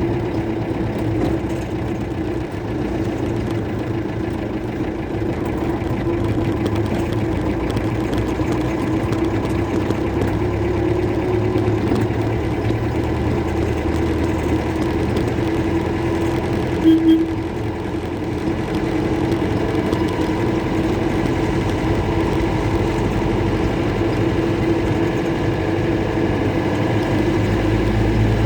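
Mercedes-Benz OM-314 four-cylinder diesel engine in a Toyota Bandeirante running steadily with a light rumble. There are two short louder blips about seventeen seconds in.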